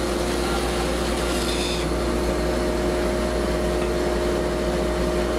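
Bandsaw running steadily with a hum and a few steady tones, its blade cutting through a dried banksia seed pod lengthwise.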